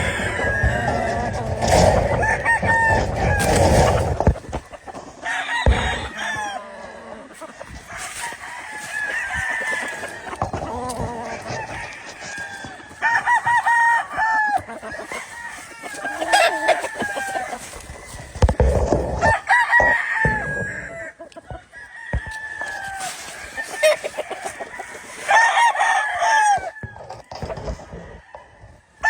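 Gamefowl roosters crowing again and again, with several drawn-out crows through the stretch and clucking between them. A low rumble sits under the first few seconds.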